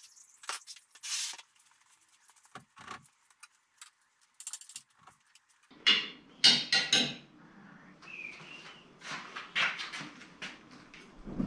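Sped-up clinks and knocks of hand tools on metal as the transfer case is unbolted from the underside of a lifted truck. Sparse at first, then louder, quicker clanks from about six seconds in over a low hum.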